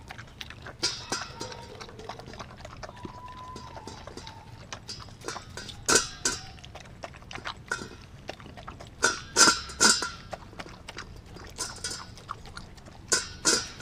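Australian Kelpie × German Shepherd cross eating raw meat and egg from a stainless steel bowl: irregular chewing and lapping, with sharper knocks and clinks of muzzle and teeth against the metal bowl. The loudest clusters come about six seconds in, around nine to ten seconds, and near the end.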